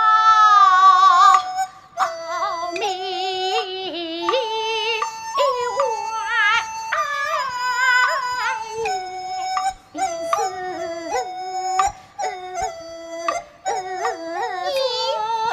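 Kunqu opera singing: a high female voice in long, sliding phrases with a wide vibrato, over a melodic accompaniment holding steady notes.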